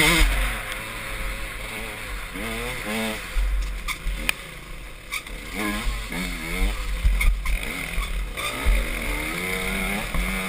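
Dirt bike engine heard from the rider's helmet, revving up and down in short swells of throttle, over a steady low rumble and a few sharp knocks.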